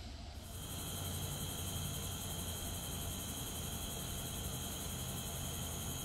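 Night insects trilling steadily in two high, unchanging tones over a faint hiss, starting about half a second in.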